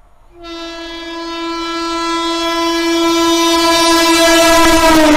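Two-tone air horn of an Indian Railways electric locomotive held in one long blast as the train approaches at speed, starting about half a second in and growing steadily louder. Near the end the pitch drops as the locomotive passes, with the rush of the train rising under it.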